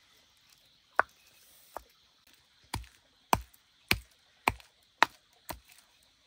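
A blade chopping: eight sharp strikes, a little over half a second apart, the later ones louder and more even.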